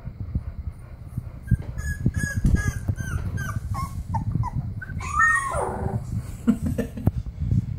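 Three-week-old bulldog puppy whimpering: a string of short, high squeaks, each dropping in pitch, then about five seconds in one longer cry that slides down in pitch.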